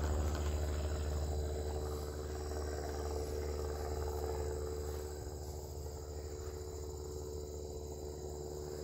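Crickets chirping steadily in a continuous high-pitched chorus, over a low steady hum.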